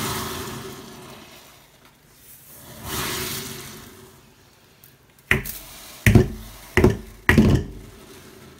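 Caustic soda shaken from a small measuring cup into a glass jar of hot water, heard as two rustling pours. These are followed by four sharp knocks as the cup is tapped to shake out what is left.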